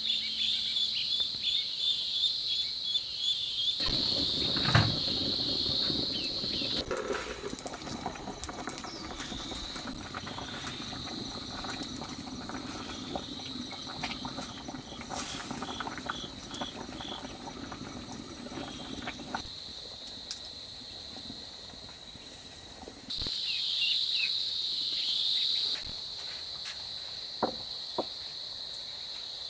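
Insects trilling steadily in a high, even chorus, which jumps abruptly louder or softer at a few points. A few light knocks and some soft rustling sound underneath.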